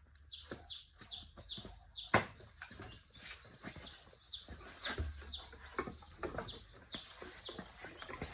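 A small bird chirping over and over: short, high notes that drop in pitch, about two a second, with scattered clicks and knocks of handling.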